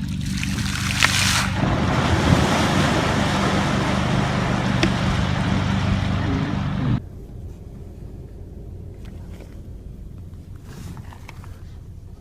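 Rushing wind and water noise over a steady low engine hum, cut off abruptly about seven seconds in and followed by quieter background noise.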